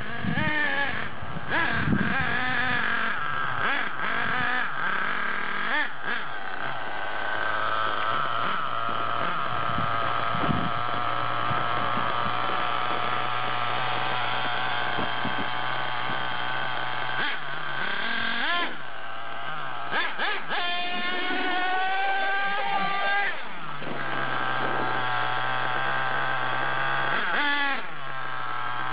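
Small engine of a radio-controlled monster truck revving up and down as it is driven, with high rising whines in quick succession. It settles to a steady idle for a few seconds near the end, then revs up again.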